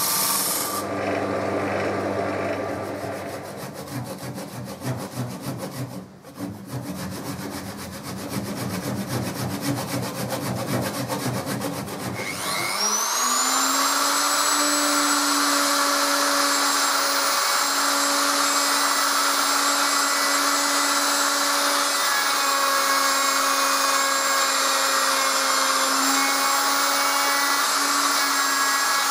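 Power tool working wood, with an uneven, pulsing rubbing sound. About twelve seconds in, an electric motor spins up, rising quickly in pitch, and then runs at a steady speed with a constant whine.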